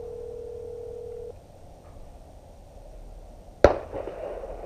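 A telephone ringback tone on a phone's speaker, one steady low tone that stops about a second in, the unanswered call ringing. Near the end, a single loud pistol shot cracks out.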